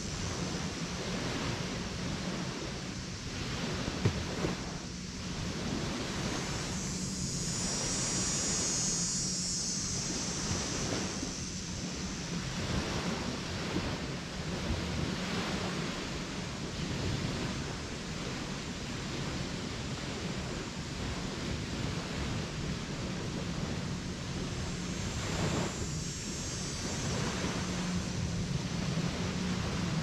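Lake Erie waves breaking and washing onto a sandy beach in a steady surf that swells every couple of seconds, with a steady low hum underneath.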